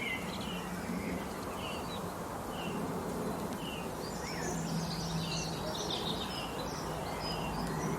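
Small songbirds chirping and twittering in short repeated notes, most busily in the middle, over a steady low buzz.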